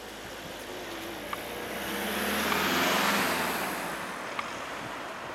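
A car driving past close by, its tyre and engine noise swelling to a peak about three seconds in and then fading, the pitch dropping as it goes by.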